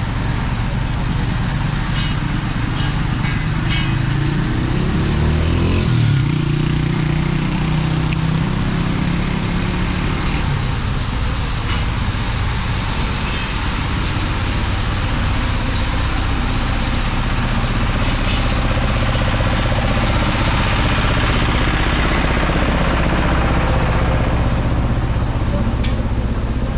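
Street traffic noise: a continuous low engine hum of road vehicles, with one vehicle's engine sweeping in pitch as it passes about five or six seconds in, and a stretch of hiss in the last third.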